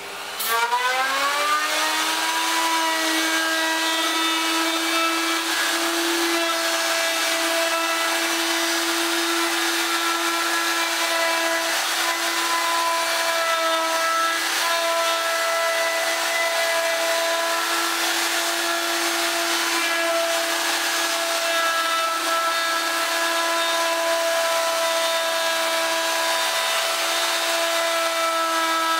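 Handheld electric router spinning up with a rising whine, then running at a steady high speed as it is guided over wood.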